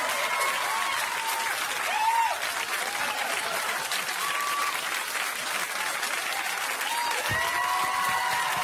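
Studio audience applauding steadily, with scattered cheers and whoops over the clapping.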